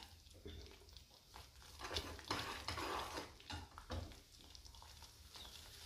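Steel ladle stirring and scraping through thick masala gravy in a pan, a few faint scrapes and clinks with quiet gaps between them.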